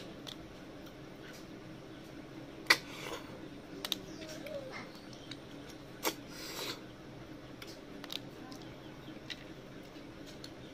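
Close-up eating sounds of cooked river snails and rice eaten by hand: a few short, sharp sucking smacks at the mouth, spaced a second or more apart.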